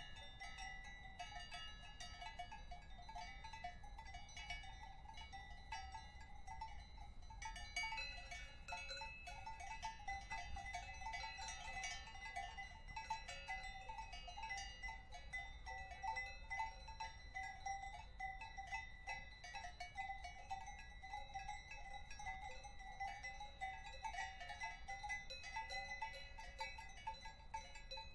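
Several cowbells clanking irregularly and without pause, their rings overlapping at a few different pitches, a little busier from about eight seconds in, over a faint low background rumble.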